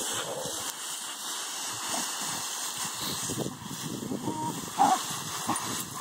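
Dry leaves rustling and crunching as two dogs, a chocolate Labrador and a shepherd mix, play-wrestle in a leaf pile, with a brief dog cry just before the five-second mark.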